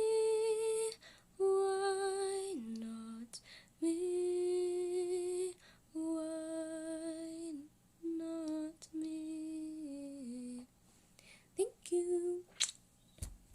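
A woman singing alone, wordless held notes like humming, in a series of short phrases that step down in pitch. The singing stops about eleven seconds in, followed by a few faint clicks.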